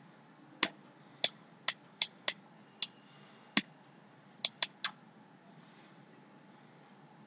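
About ten sharp, single clicks from a computer's keys or mouse as a document is paged through. They come irregularly spaced at first, then as a quick run of three about four and a half seconds in, over a faint steady hiss.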